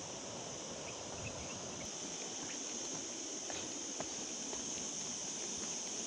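Footsteps on a stony dirt trail, heard as scattered irregular ticks, over a steady high-pitched hiss.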